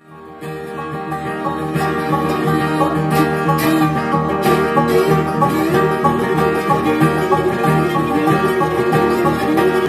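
Live bluegrass band playing an instrumental passage: banjo, fiddle, mandolin and guitar together. The sound fades in over the first second or two.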